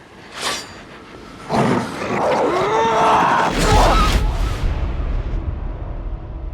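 Trailer sound effects: a short whoosh, then a loud sound that rises and falls in pitch, with a deep low boom coming in about halfway through and carrying on.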